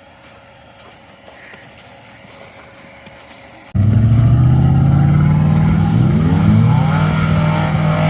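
Off-road truck engine, faint and low at first. About halfway through, a much louder engine comes in suddenly and is revved hard, its pitch climbing, as the truck is driven on the throttle rather than feathered over an obstacle.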